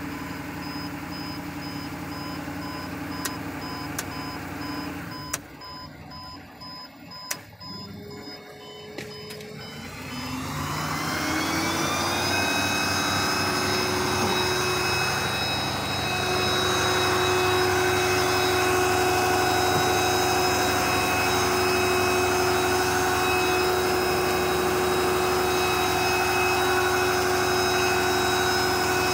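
A repeating electronic warning chime sounds over the running 2018 Ford F650 truck for the first few seconds, then a few clicks and a quieter stretch. About ten seconds in, the engine's pitch rises over a couple of seconds, and it then runs steadily with a whine.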